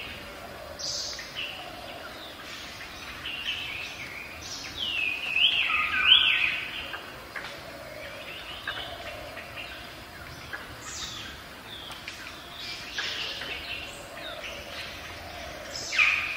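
Songbirds singing and calling: a run of short chirps and quick downslurred whistles, busiest about five to six seconds in, over faint outdoor background noise.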